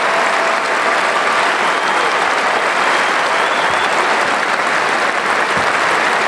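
Large arena crowd giving a standing ovation: dense, steady applause.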